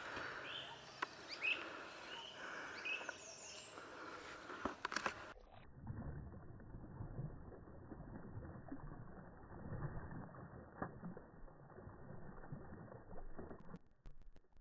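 Birds chirping and calling outdoors for about the first five seconds. Then the sound abruptly turns dull and muffled, leaving only a low rumbling.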